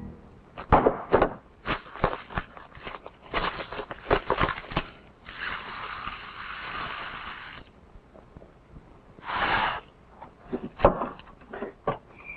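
Cartons and canisters knocked and set down on a kitchen counter in a string of short clicks and knocks. A dry ingredient is poured from a carton for about two seconds midway, with a shorter pour about three seconds later.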